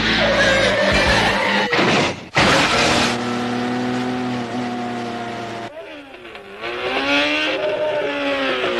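Motor vehicle engines running and revving. The engine note holds steady for a few seconds, drops away, then dips and rises again in pitch near the end.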